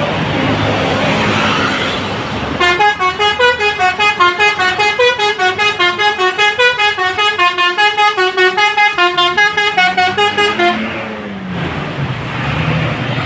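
Indonesian bus 'telolet' musical horn, a set of air horns playing a quick tune of short, rapidly changing notes. It starts a couple of seconds in and stops sharply after about eight seconds, over the noise of road traffic and a bus engine.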